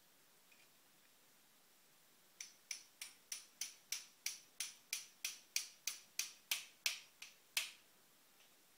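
A run of about seventeen sharp metallic taps, evenly spaced at about three a second, starting a couple of seconds in and stopping shortly before the end. A hand hammer is striking a drift held on a CNC spindle bearing clamped in a bench vise, tapping the bearing into or out of its seat.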